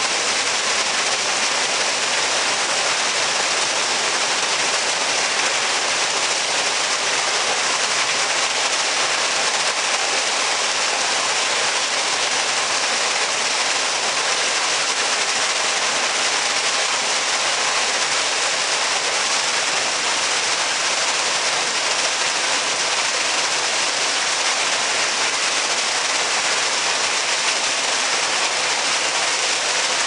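Artificial waterfall pouring into a shallow pool, a steady splashing rush of falling water.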